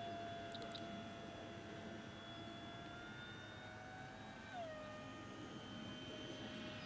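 Faint, steady high-pitched whine of the T-50 model jet's electric ducted fan flying at a distance, with several tones together; about four and a half seconds in the pitch drops a little as the throttle is eased back for a slow pass.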